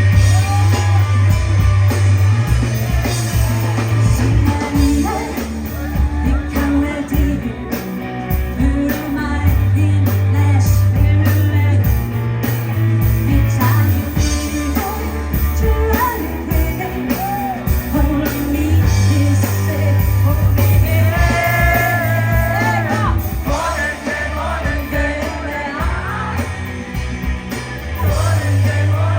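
A rock band playing live with a singer: a repeating bass line, electric guitar and drums under the lead vocal.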